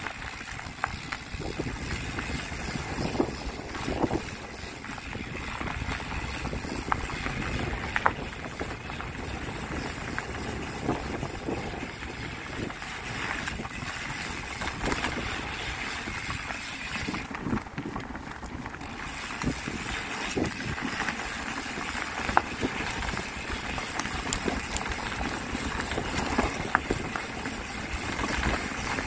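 Bike ridden over a rough trail: steady rushing wind and tyre noise with frequent knocks and rattles from the bumps. The rush briefly dulls about eighteen seconds in.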